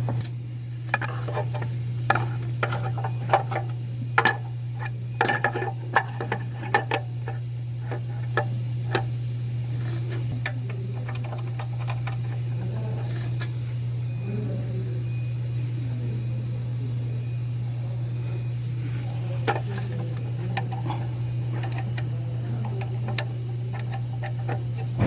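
Scattered sharp clicks and metallic knocks of hand tools on the engine, most of them in the first half, over a steady low hum; faint voices in the background.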